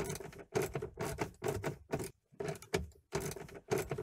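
Ratchet wrench with an 8 mm socket clicking in short runs, two or three a second, as it backs out the bolts holding the instrument cluster.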